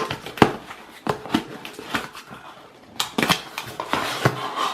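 A shipping package being handled at close range: irregular sharp clicks, knocks and rustles, thickest about three seconds in and again near the end.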